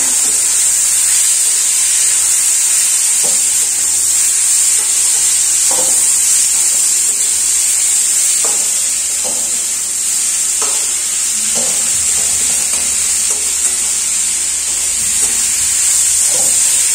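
Chopped vegetables sizzling steadily as they stir-fry in hot oil in a steel kadhai. A steel spatula scrapes and knocks against the pan several times.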